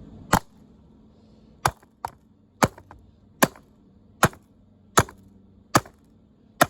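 Repeated hard blows on the strong plastic housing of a broken vacuum cleaner as it is smashed apart: about eight sharp knocks, one every second or less.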